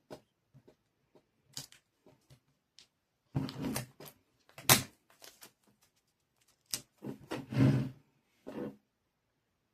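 Irregular clicks, taps and rustling of small craft pieces being handled and set onto a plate charger, with one sharp click about halfway through.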